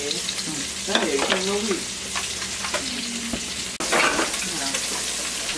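Crab meat frying in skillets, a steady sizzle.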